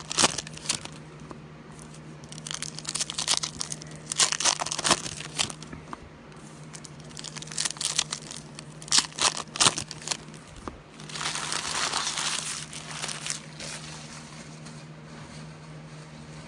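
Foil wrappers of football card packs crinkling and tearing as they are ripped open by hand, in irregular bursts, with a longer stretch of crumpling about eleven seconds in. A faint steady hum sits underneath.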